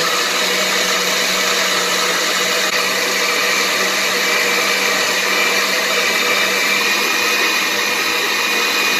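Countertop blender running steadily, grinding soaked rice and cinnamon in water into horchata: an even motor hum under the churning of the liquid.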